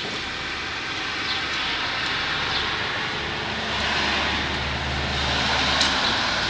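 A motor vehicle passing by, its engine hum and road noise swelling to a peak and then fading.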